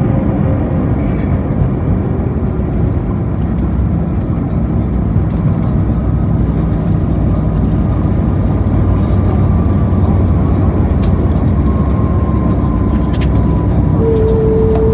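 Cabin noise inside an Airbus A321neo: a steady rumble of engines and airflow, with a faint whine slowly falling in pitch. A steady higher tone comes in near the end.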